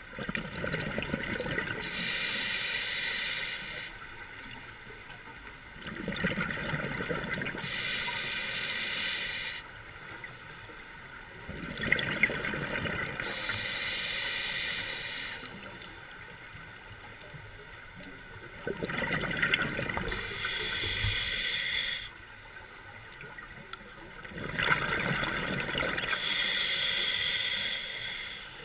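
Scuba diver breathing underwater through an open-circuit regulator, five breaths about six seconds apart, each a burst of gurgling exhaled bubbles followed by a rushing hiss.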